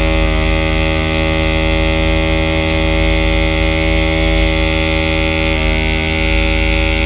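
Electric airbrush marker pen running, its small motor and air pump making a loud, steady buzzing hum as it sprays ink from the fitted marker.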